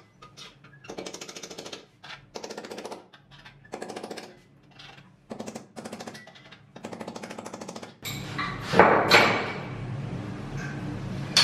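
About six short bursts of rapid mechanical hammering, each lasting under a second. After them comes louder clatter with a few sharp knocks near the end.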